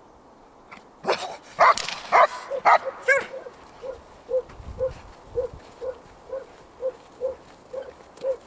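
A large black dog barks several times in a quick burst, then footsteps crunch through snow in an even rhythm of about two steps a second as the dog and a person walk on together.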